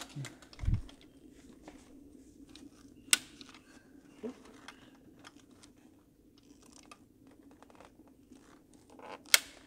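Scattered clicks, knocks and rag rustling from gloved hands prying at the stuck fuel rail and injectors of a Ford Mustang GT's V8, with a dull thump just after the start and two sharp clicks, about three seconds in and near the end, over a steady low hum.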